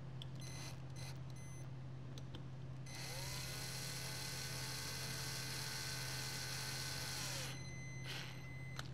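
Cordless drill-driver turning a screw bit to drive a fastener through the trigger assembly into a soil pick's handle housing: a few short whirs, then a steady whine that climbs in pitch and runs for about four seconds, then one brief whir near the end.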